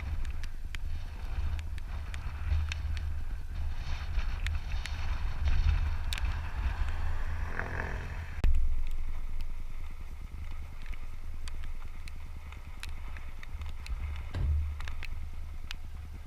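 Wind buffeting an outdoor microphone: a gusty low rumble that rises and falls, with scattered sharp ticks and a louder sudden gust about halfway through.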